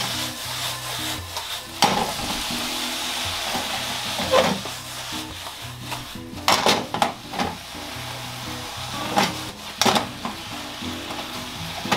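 Sliced mushrooms stir-frying in miso butter in a frying pan: a steady sizzle as they are stirred with a silicone spatula. Every few seconds there is a scrape or knock of the spatula against the pan.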